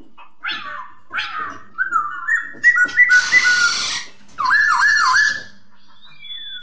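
Poksay (laughingthrush) calling: a run of loud whistled notes that slide up and down, broken by two harsh, noisy chatter calls about three and four and a half seconds in.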